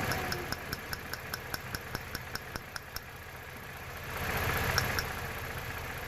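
Car engine idling with an even ticking, about five ticks a second. A hiss swells briefly about four seconds in.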